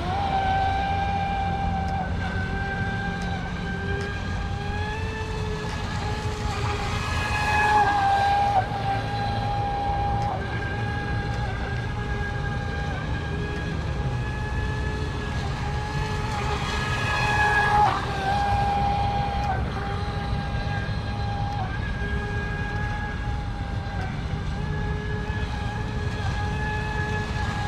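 Tenshock electric motor of an F1 RC speedboat running at speed: a steady high whine over a low rumble, swelling louder with a hiss of water about eight seconds in and again about seventeen seconds in as the boat passes close.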